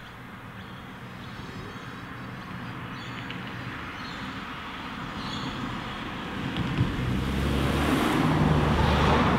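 A motor vehicle approaching, its engine noise growing steadily louder and turning into a heavy low rumble in the last few seconds. There is one short thump about two-thirds of the way through.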